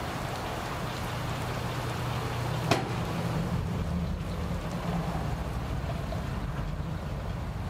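Pickup truck engine idling with a steady low hum, broken by a single sharp knock a little under three seconds in.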